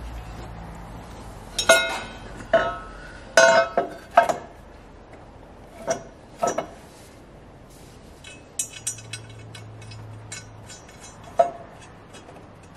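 Metal-on-metal clinks and knocks as an exhaust manifold and hand tools are handled and fitted in an engine bay. There are several sharp ringing knocks, and a flurry of quicker, lighter clicks about two-thirds of the way in.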